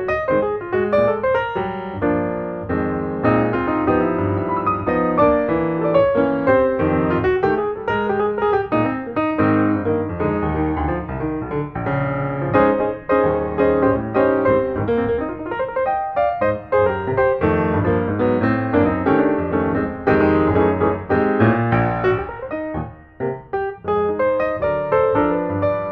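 Background piano music: a lively run of quick piano notes.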